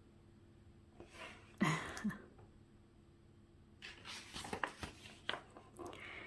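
A page of a hardcover picture book being turned by hand: paper rustling and crinkling with small clicks for about a second and a half, starting about four seconds in. A short, louder sound comes earlier, about a second and a half in.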